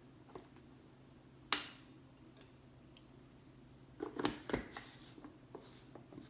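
Spoon knocking and scraping in a bowl while corn starch is stirred in: one sharp knock about a second and a half in, then a quick cluster of knocks and scrapes around four seconds in.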